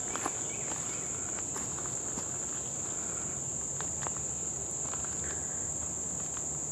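A steady, high-pitched insect chorus drones on without a break, with a few light footsteps on a dirt path in the first seconds.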